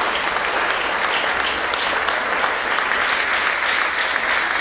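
A crowd applauding, many hands clapping steadily and densely without a break.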